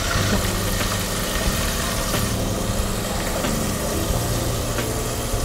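Flour-coated chicken wings deep-frying in hot oil, a steady sizzle with a low hum underneath. This is the first frying that crisps the coating.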